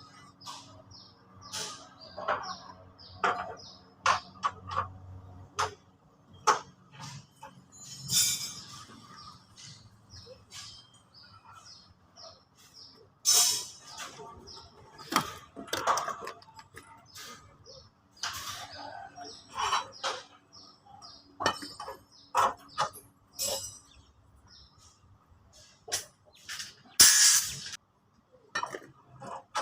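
Irregular clinks and knocks, such as tools or materials being handled during building work, with short high chirps in between and a few longer scraping or rustling bursts.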